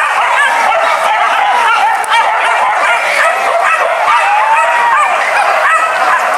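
A pack of leashed hunting dogs yelping and whining all at once, many short overlapping calls, with one drawn-out whine about four seconds in.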